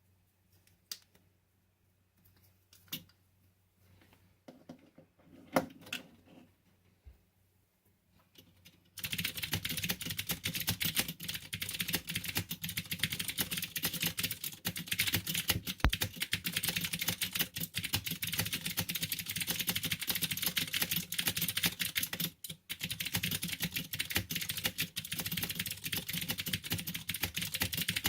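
Fast touch-typing on a Vortex Pok3r mechanical keyboard, about 117 words per minute: a dense, continuous clatter of keystrokes. It starts about nine seconds in after a few scattered clicks, with a brief pause about two-thirds of the way through.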